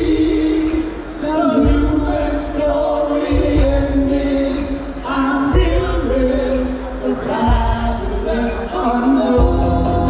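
Choir singing long held notes in harmony, with low bass notes underneath.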